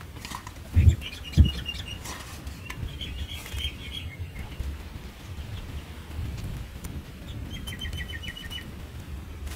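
Small birds chirping: three short runs of quick, evenly repeated high notes, over a steady low rumble. Two low thumps, the loudest sounds, come about a second in.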